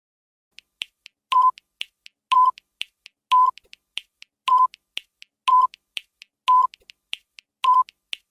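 Countdown timer sound effect: a short beep about once a second, with quick ticks in between, starting about half a second in.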